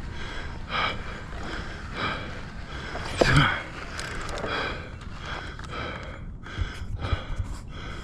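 A mountain biker breathing hard into a helmet-mounted camera's microphone, winded after a downhill run. The breaths come about once a second, with one louder voiced gasp a little past three seconds in.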